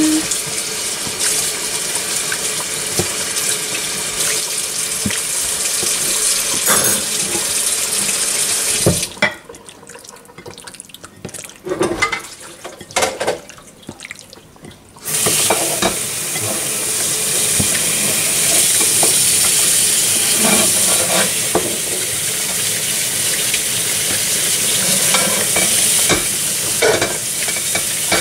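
A hand kneading and squeezing marinated chicken pieces in a glass bowl: steady wet squelching and sloshing of the marinade, which pauses for several seconds near the middle and then carries on.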